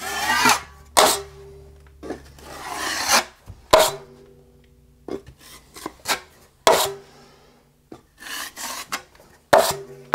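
Steel drywall taping knife scraping setting-type joint compound across the wall in a series of short rasping strokes, with sharp clacks as the blade is wiped on a metal mud pan. The compound is already stiffening as it sets.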